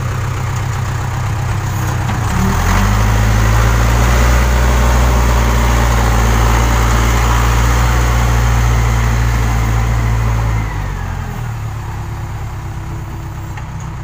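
Case 580 Super K backhoe loader's diesel engine running. About two and a half seconds in it revs up and runs louder under load for about eight seconds, then drops back toward idle near the end.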